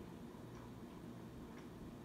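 Faint, regular ticking about once a second over a low, steady room hum.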